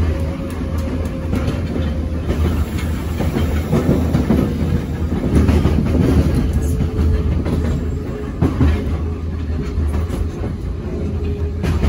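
Ezh3 metro car running, heard from inside the car: wheels clattering over rail joints over a steady low hum, with a faint steady whine.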